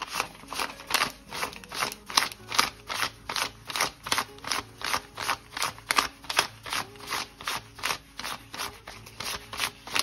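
A stack of US $100 paper bills counted by hand, each note flicked off the stack with a crisp paper snap, about three a second in an even rhythm.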